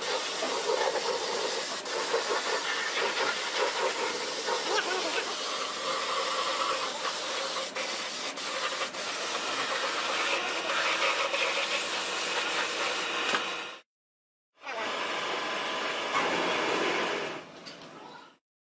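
Compressed-air paint spray gun hissing steadily as it sprays paint onto an electric motor housing. The hiss cuts off suddenly at about 14 seconds, comes back briefly, then fades out near the end.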